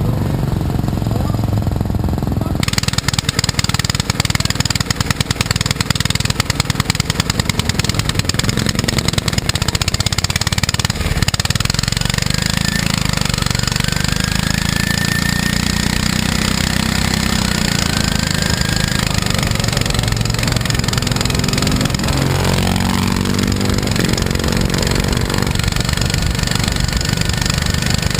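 Racing lawn mower engines running loudly, with a fast pulsing beat. Most of the way through, one engine's pitch rises and falls as it is revved.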